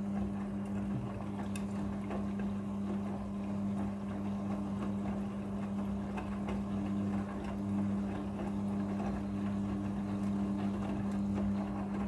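Midea front-loading washing machine turning its drum during a water-fill stage, a steady motor hum over the rumble and swish of wet laundry tumbling.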